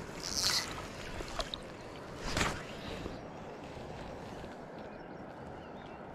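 Water sloshing around a wading fly angler, with a short splashy hiss about half a second in and a brief louder splash about two and a half seconds in, over a steady outdoor hiss.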